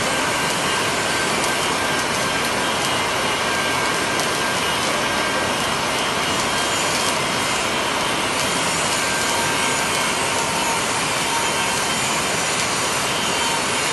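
Flux-cored arc welding: the arc crackling and sizzling steadily and evenly.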